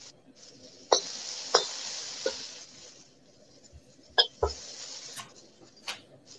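Beef pieces sizzling in a very hot wok while a metal spatula knocks and scrapes against the pan about seven times, turning the pieces over to sear.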